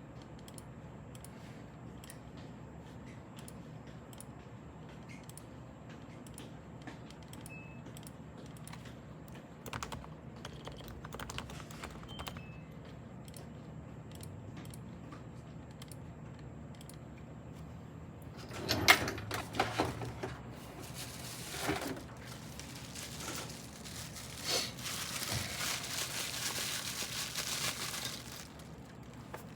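Topre Type Heaven keyboard, with electrostatic-capacitive rubber-dome switches freshly bag-lubricated, being typed on. At first single keystrokes come a second or so apart, with a short burst of quicker typing about ten seconds in; in the second half the typing gets faster and louder.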